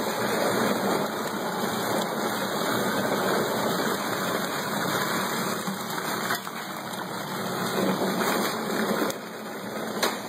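A 1¼-horsepower garbage disposal running steadily, churning and circulating margarita mix through a return feed as ice goes in.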